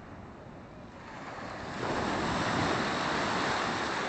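Black Sea surf: a wave breaks and rushes up the shore, the wash swelling about a second in and staying loud through the second half.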